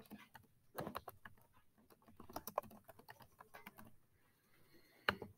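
Computer keyboard keys being typed in short runs of quick clicks with brief pauses between them, as a word is typed out.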